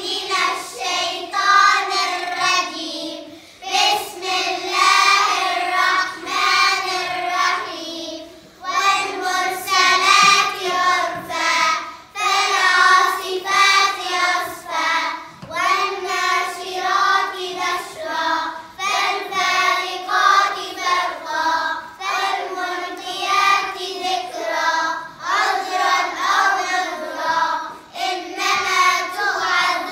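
A group of young girls reciting together in unison in a melodic chant. The chant runs in phrases of a few seconds, with brief pauses for breath between them.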